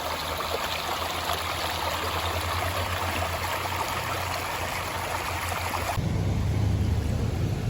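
River water flowing and splashing, a steady rushing sound. About six seconds in it switches abruptly to a deeper, louder rumble.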